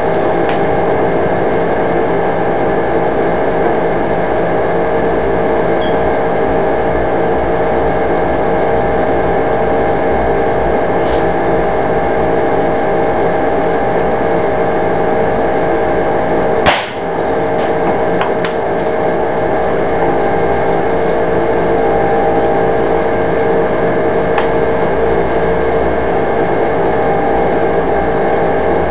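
A steady machine-like hum with several fixed tones runs throughout. About two-thirds of the way through comes a single sharp crack, the loudest sound, which is a shot from the .22 (5.5 mm) CBC air rifle, followed by a few faint clicks.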